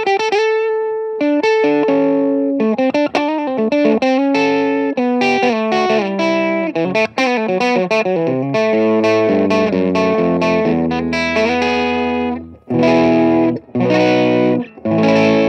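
Electric guitar played through a mild overdrive pedal with some clean signal blended in: a run of quickly picked notes and broken chords, then three separate chords near the end, each note standing out clearly.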